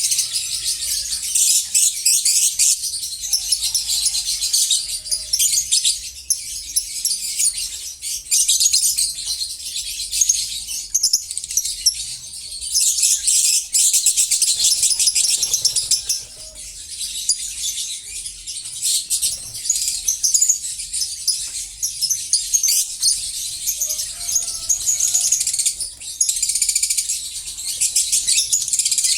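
Many lovebirds chattering at once in an aviary, a dense, continuous stream of rapid high-pitched chirps.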